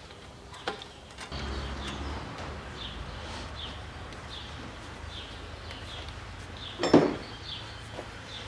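A small bird chirps over and over in the background, about two short high chirps a second, over a low steady hum that sets in about a second in. A few light clicks and one sharp knock about seven seconds in come from the work on the engine.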